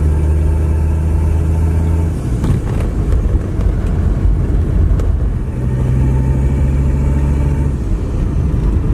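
Mercedes OM617.952 five-cylinder turbodiesel in a 1984 300 CD running under way, heard from inside the closed cabin. Its steady note drops away about two seconds in and settles back about five and a half seconds in.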